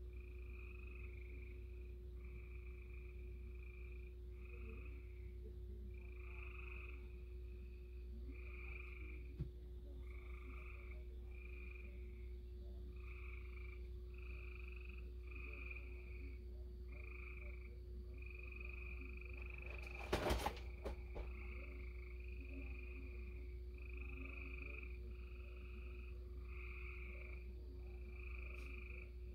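A chorus of frogs calling, about a second per call, one after another without a break, over a steady low hum. A short clatter of knocks comes about twenty seconds in.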